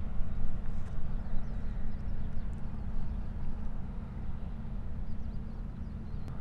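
Wind buffeting the microphone: a steady low rumble that keeps rising and falling in strength.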